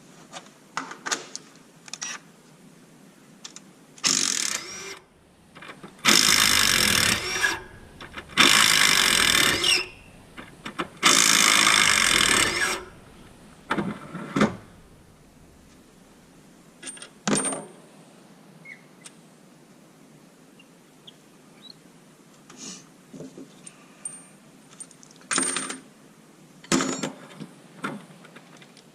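Metal tools and supercharger parts clinking and clattering on the bench through a teardown. Near the middle come three loud sustained bursts of about a second and a half each.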